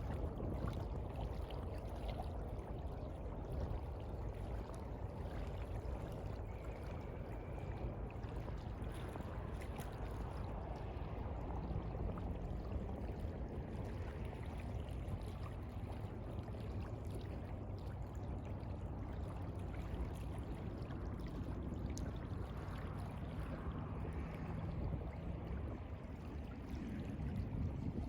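Seawater lapping and sloshing in a steady, even wash, with no single big wave breaking.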